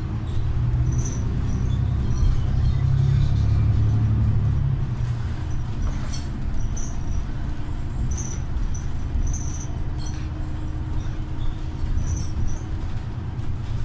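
Interior of a New Flyer XDE60 hybrid articulated bus under way: low rumble of its Cummins ISL9 diesel and Allison hybrid drive, swelling for a few seconds about a second in and then settling, with faint squeaks and rattles from the body and fittings.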